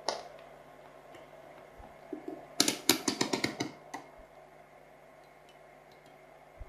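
A single sharp click, then about two seconds later a quick run of clicks and small rattles lasting a second and a half. It sounds like a multimeter and its test leads being handled against the module on a desk.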